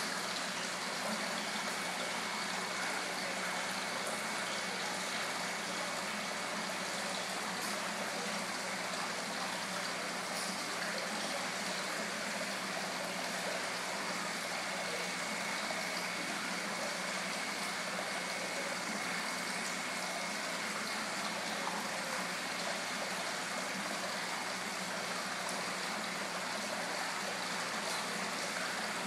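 Steady splashing of water returning into an indoor koi pond from its waterfall and jet, with a faint steady hum under it.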